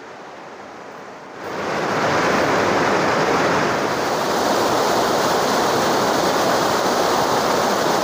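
Rushing white water of a river cascading over rocks: a loud, steady roar of water that comes in suddenly about a second and a half in, after a faint quiet start.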